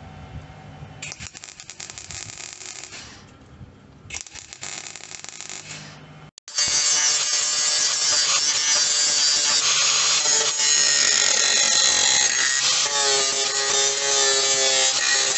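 Two short bursts of hissing crackle, then from about halfway an angle grinder grinds loudly and steadily on the welded steel outer sill of a Triumph Spitfire, its pitch wavering as it bites.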